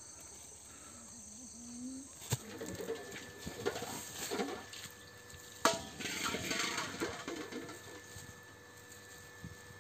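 Plastic bag crinkling and rustling as a bagful of sago grubs is shaken out onto a woven bamboo tray, with a sharp knock about halfway through; the rustling dies away after about three-quarters of the way.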